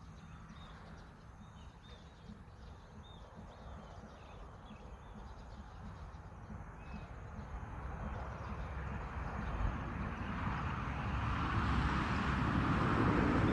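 Outdoor evening ambience with faint, scattered bird chirps. A broad rushing noise then swells steadily louder over the second half.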